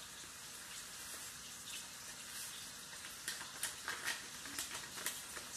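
A steady faint hiss, with a few light paper crinkles and taps about three to five seconds in, as a seasoning-mix envelope is opened and emptied into a cup of hot water.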